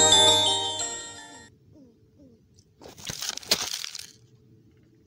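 Background music of bright chiming notes, stopping about a second and a half in. Then a short burst of noise for about a second, around three seconds in.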